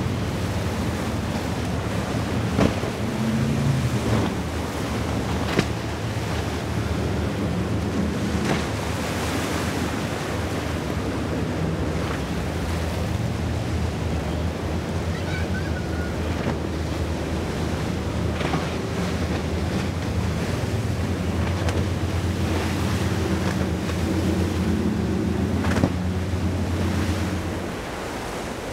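Twin-outboard centre-console fishing boats running past through choppy water: a low, steady engine drone under wave wash and wind buffeting the microphone, with a few sharp knocks. The drone drops away near the end.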